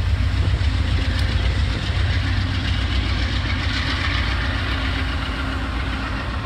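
GE P40DC diesel locomotive's 16-cylinder engine working under load as it pulls a passenger train away, a steady deep rumble mixed with the noise of the coaches rolling past.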